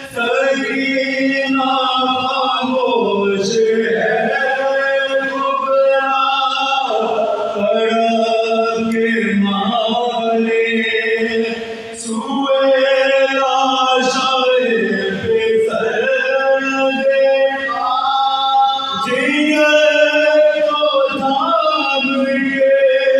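Unaccompanied male voices chanting a soz, a mournful Urdu elegy of Muharram, in unison: a lead reciter with three companions, in long held phrases. The voices break briefly about twelve seconds in, then take up the next line.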